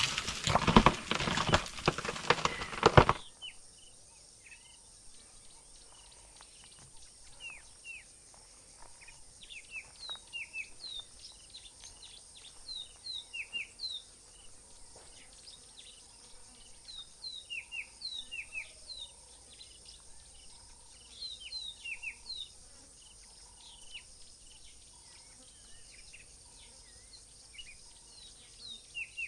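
A loud, dense burst of noise for about the first three seconds, which cuts off suddenly. Then quiet bush ambience: a bird repeating short, downward-sliding chirps in clusters over a steady, high insect drone.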